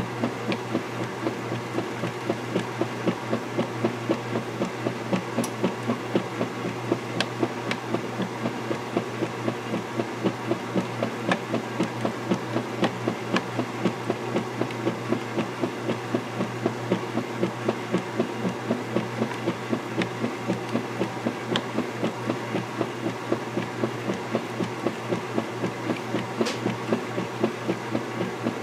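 Vintage KitchenAid direct-drive top-load washer agitating a sudsy load: a steady motor hum under the quick, even swish and slosh of the finned agitator reversing back and forth, with a few faint clicks.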